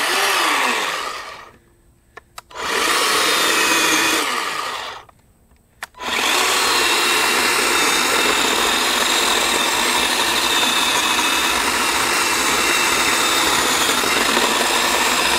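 Greenworks 40V battery-powered 12-inch chainsaw. Its electric motor is run up twice in short bursts that wind down with falling pitch, with a small click before each. About six seconds in it runs steadily, cutting through a log.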